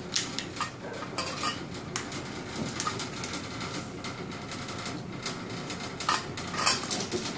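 Puppies scrabbling and play-biting on a tile floor: an irregular run of light clicks and scrapes from claws and teeth, with sharper clicks near the start and about six to seven seconds in.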